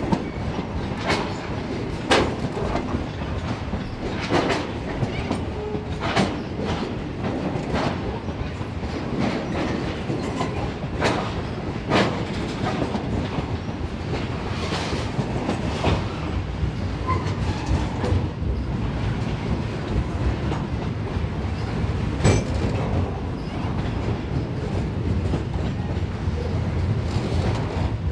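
A train rolling past with a steady low rumble, its wheels clicking sharply over rail joints every second or two.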